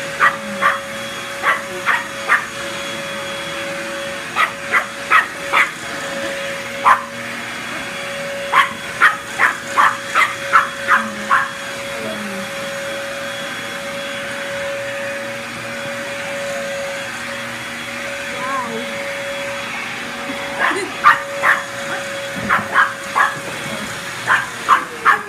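A small dog barks repeatedly in short bursts of several quick barks, with pauses between, at a running vacuum cleaner whose motor hums steadily. Just before the end the vacuum is switched off and its motor winds down with a falling whine.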